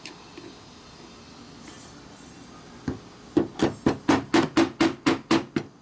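A soft-faced mallet tapping a screwdriver handle to work at the seal and snap ring of a Harley 39 mm fork slider. There is one tap near the middle, then a quick even run of about ten taps, some four a second, each with a brief metallic ring.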